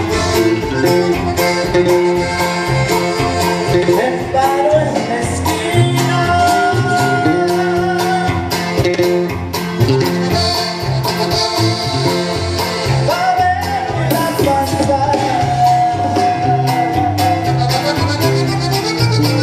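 Latin dance music with a steady beat, a repeating bass line and long held melody notes.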